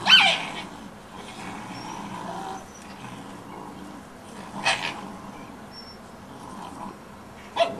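Wolf pups squabbling over a piece of deer: a loud high-pitched yelp right at the start, another short cry about five seconds in and one near the end, with quieter scuffling noise between.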